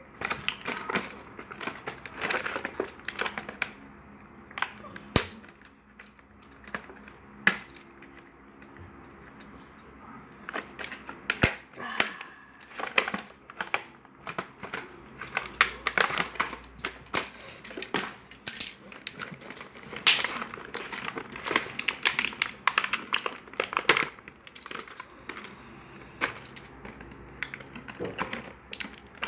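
Plastic packaging crinkling and crackling as hands work a toy figure free, with many sharp clicks and snaps coming on and off.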